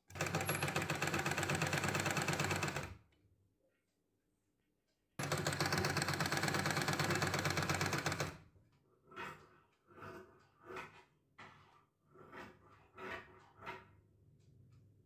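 Singer sewing machine stitching gathered ruffle strips onto fabric: two runs of rapid, steady needle clatter of about three seconds each, with a pause between. After them come a string of short, irregular knocks and rustles.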